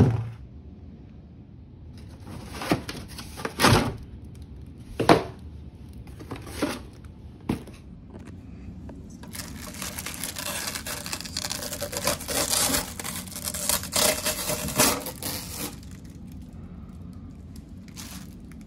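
Unboxing handling: a knock at the start, then several short scrapes and rustles of cardboard and plastic packing, followed by about six seconds of steady crinkling and rustling as a clear plastic bag is pulled off an RC truck.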